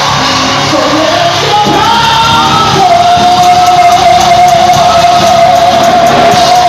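Live gospel worship music: a voice sings a rising phrase, then belts one long high note from about three seconds in, over the band's accompaniment.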